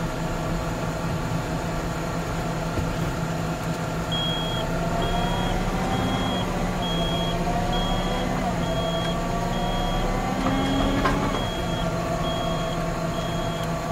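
Tractor engine running steadily, its reversing alarm starting about four seconds in and beeping at an even pace, a little more than once a second, as it backs up. The engine note rises and falls slightly under load in the middle.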